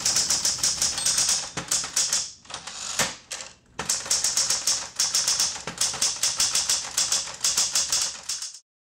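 Smith Corona manual typewriter being typed on fast, its keys striking several times a second, with a short slower stretch about two seconds in before the rapid typing resumes and stops abruptly near the end.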